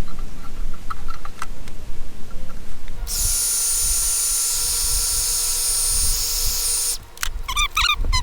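Small clicks of handling, then a handheld electric power tool runs steadily with a high whine for about four seconds and cuts off. Clicks and short squeaks follow near the end.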